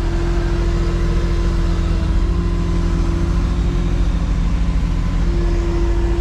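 Engine running steadily at idle: a continuous low rumble with a steady hum over it.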